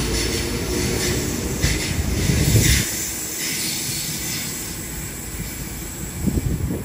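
Sydney Trains H set (OSCAR) electric double-deck train pulling out past the platform, wheels and running gear rumbling loudest as the end car goes by about two and a half seconds in, then fading as the train draws away.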